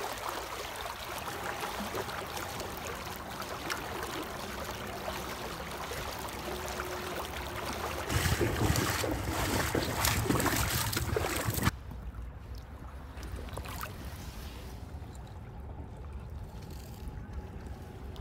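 Steady rush of a shallow river riffle with wind on the microphone. For a few seconds in the middle it turns louder and choppier with water splashing and wind rumble as a hooked skin carp is lifted from the shallows, then cuts off sharply to a quieter, steady water sound.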